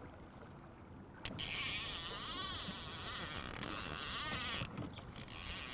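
A fishing reel's spool spinning as line pays out behind a planer board, giving a high whirring hiss. It starts about a second in, cuts off abruptly near the end, then starts again.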